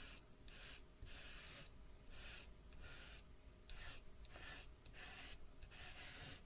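A soft chalk pastel stick rubbed across drawing paper in quick repeated strokes: a faint, dry, scratchy rasp with each stroke, coming in a steady rhythm of roughly one or two a second.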